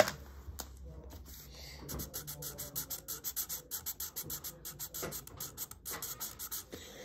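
Felt-tip marker scribbling quickly back and forth on paper, colouring in, starting about two seconds in. A sharp click at the very start.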